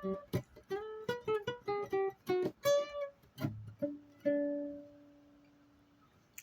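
Plucked string instrument playing a melody of single picked notes, about three or four a second. It ends on one long note about four seconds in that rings on and fades away.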